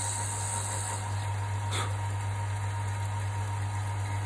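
Wood lathe motor running steadily with a low hum while a 4 mm twist drill bores a hole into a wood block. There is one brief, sharper rasp about two seconds in.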